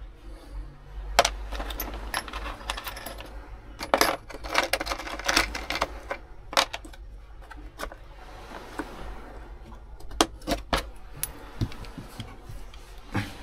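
Irregular sharp knocks and metallic clinks from hand work fastening a bent fitting into a caravan cabinet. They come in scattered groups with short pauses, the busiest stretch around four to five seconds in.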